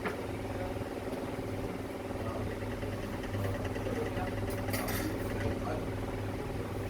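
A steady mechanical hum with a low, even drone, and a short hiss about four and a half seconds in.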